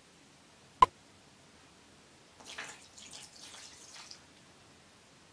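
Borax solution poured from a small glass into a pool of glue and shaving cream, the activator step in making slime, with faint trickling and splashing in short spells about halfway through. A single sharp click, a little under a second in, is the loudest sound.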